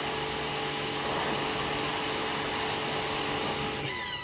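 Pressure washer running with a steady motor whine and the hiss of its spray; near the end the motor winds down, its pitch falling as it stops.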